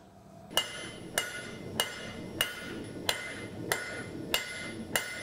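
Blacksmith's hand hammer striking a red-hot bar on the anvil, starting about half a second in. Eight evenly spaced blows at nearly two a second, each with a bright metallic ring.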